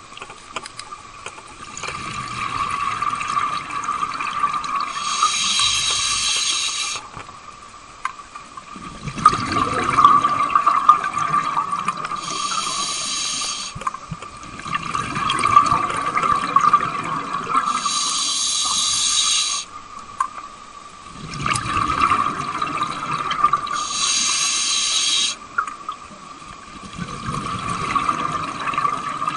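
A scuba diver breathing through a regulator underwater, heard in a regular cycle about every six seconds: a hiss on each breath in, then a rush of exhaled bubbles. A steady hum runs underneath.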